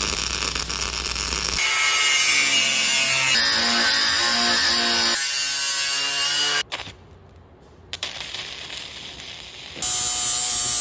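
Metalworking sounds joined by edits: a MIG welder's arc crackling for the first second or so, then an angle grinder running loudly as it cuts steel rod. The sound breaks off suddenly and goes quieter for a few seconds, and near the end a grinder runs loudly again against stainless tube with a steady high whine.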